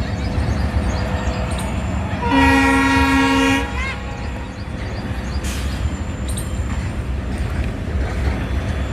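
Diesel freight train passing with a steady low rumble, and the locomotive's horn sounding one blast of about a second, a little over two seconds in.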